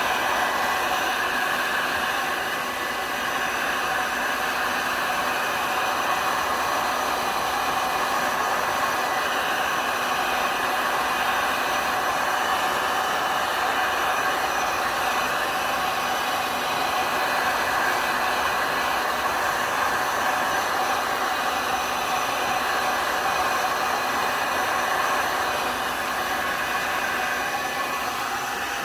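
Heat gun running steadily, a constant blowing hiss with a faint steady whine, used to push and dry alcohol ink on a tumbler.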